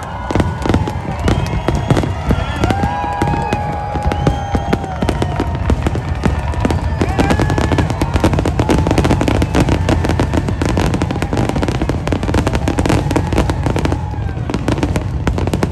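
Fireworks going off without a break: dense, rapid crackling and popping, with high whistling tones held over it for a second or two at a time.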